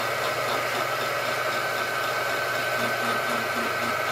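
Vertical milling machine running a 3-inch slitting saw as it climb-mills a slot into the head of a small 1018 steel screw: a steady whir with a high steady tone over a low hum.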